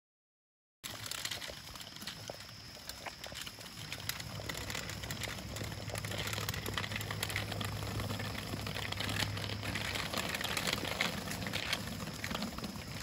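Children's bicycles rolling along a paved path, a steady crackle and rattle of small tyres and training wheels on rough asphalt, starting suddenly about a second in.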